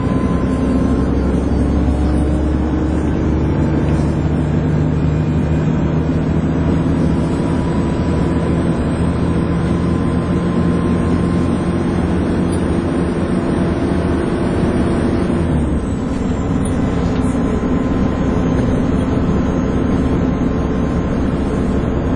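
Dennis Trident 2 double-decker bus running, its drivetrain with the high vacuum-cleaner-like whine that enthusiasts call "hoovering". The engine note rises slowly, then drops about three-quarters of the way through as the bus eases off or changes gear.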